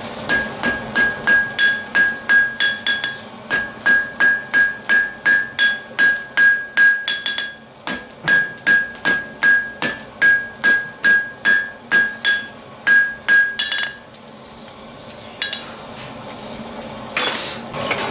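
Blacksmith's hand hammer striking a red-hot steel bar on an anvil, about three blows a second, each blow followed by a bright ringing note from the anvil. The hammering stops about fourteen seconds in and starts again just before the end.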